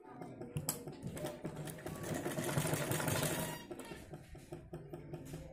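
Sewing machine running a seam along a folded fabric strip: a quick run of needle-mechanism clicks, loudest in the middle, then slowing to separate clicks near the end.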